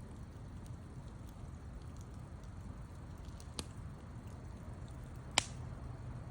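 Wood fire burning with a steady low rumble and scattered faint crackles, a louder pop a little past halfway and a sharp, loudest pop near the end.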